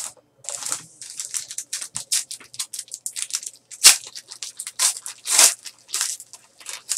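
A trading-card pack wrapper being handled and torn open: a quick run of crinkling and tearing rustles, with a sharp snap about four seconds in and a longer tearing rip around five and a half seconds.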